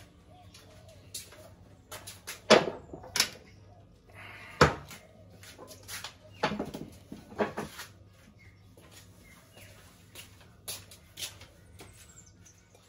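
Irregular knocks and clatters of a bucket and other gear being picked up, moved and set down. The loudest come about two and a half, four and a half and six and a half seconds in, over a faint steady low hum.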